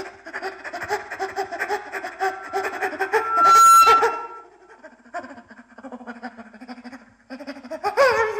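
A man's voice in an experimental sung performance, vocalising in rapid choppy pulses much like laughter, rising to a loud high held note about halfway through. Lower stuttering sounds follow, then a sharp sliding cry near the end.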